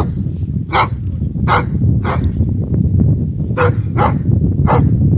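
German shepherd barking in short single barks, six times at uneven intervals, over a steady low rumble of wind on the microphone.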